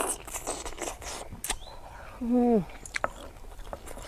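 Mouth sounds of someone eating seafood noodle soup: a slurp of noodles at the start, then small wet chewing clicks. About two seconds in comes a brief voice-like hum that falls in pitch, the loudest sound.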